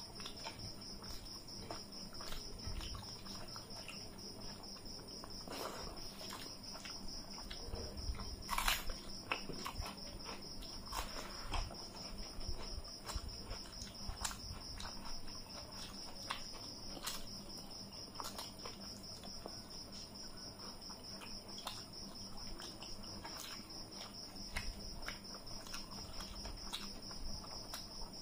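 Eating sounds: fingers mixing rice and curry on metal plates, with chewing, scattered clicks and lip smacks. Under them runs a steady high chirring of crickets.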